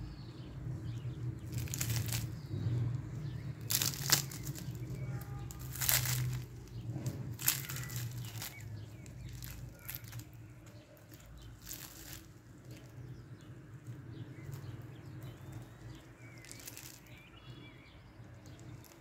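Crisp crust of fried sfenj (Moroccan yeast doughnuts) crackling and crunching as gloved hands tear the rings apart, with the crinkle of plastic gloves. It comes as a few sharp crackles, most of them in the first half.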